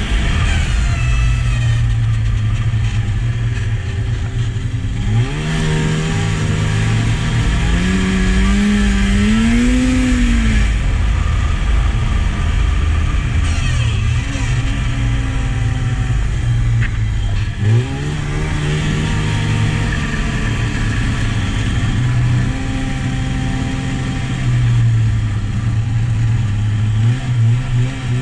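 Two-stroke snowmobile engine heard from the rider's seat while riding a trail. Its pitch climbs as the throttle opens about five seconds in, rises and falls again around ten seconds, and climbs once more about eighteen seconds in, with uneven throttle near the end.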